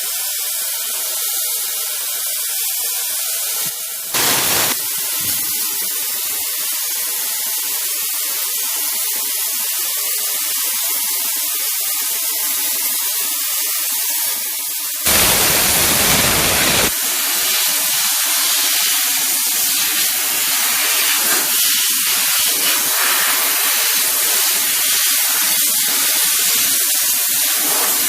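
Household steam cleaner's nozzle hissing steadily as it sprays high-pressure, high-temperature steam, with two louder full-blast bursts: a short one about four seconds in and a longer one of nearly two seconds around the middle.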